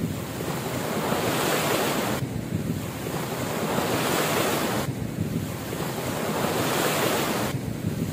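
Ocean waves washing up a sand beach, a steady rush of surf that swells and eases about every two and a half seconds.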